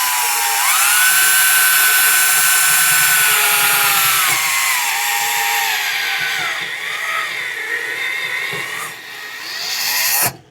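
Power drill running as it bores a hole into a vintage pool ball: a steady motor whine that rises in pitch about half a second in, sags under load around four to five seconds in, and stops just before the end.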